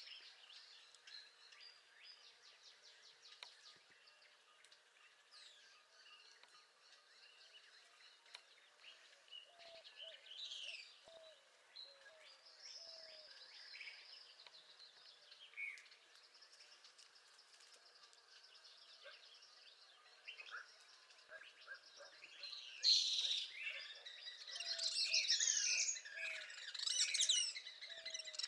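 Several songbirds singing at once, among them a northern parula's fast buzzy trills. The singing is faint at first and grows louder and busier near the end.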